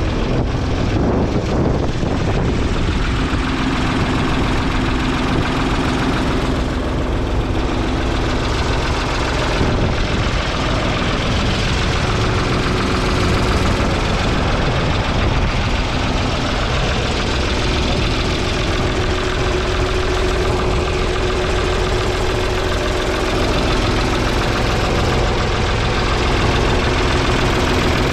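1970 Ford 3000's 2.9-litre three-cylinder diesel engine idling steadily.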